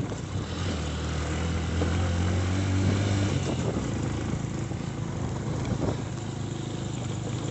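Motor vehicle engine running, climbing in pitch over the first few seconds and then easing off, as when accelerating and then backing off.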